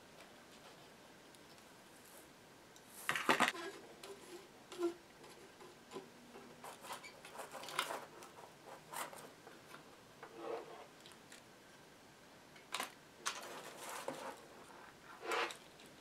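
Faint clicks, taps and rustles of small metal parts and old wires being handled and pulled on a workbench while connections on a 1920s radio chassis are desoldered. The loudest clatter comes about three seconds in, and scattered taps follow through the rest.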